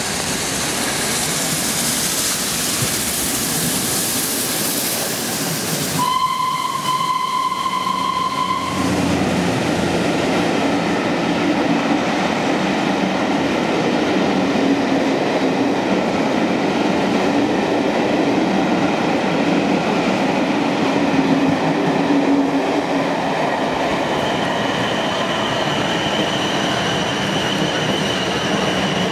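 Steam locomotive 60163 Tornado, an LNER Peppercorn A1 Pacific, running through the station at speed: a loud noisy rush, then its steam whistle sounds for about two and a half seconds. After that the coaches roll past with a steady rumble and clatter, and a thin high tone comes in near the end.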